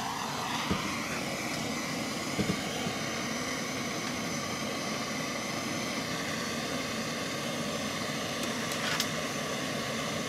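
Hand-held MAPP gas torch burning steadily with a constant hiss, its flame heating a copper pipe fitting before it is soldered (sweated). A few brief clicks come through about a second in, around two and a half seconds in and near the end.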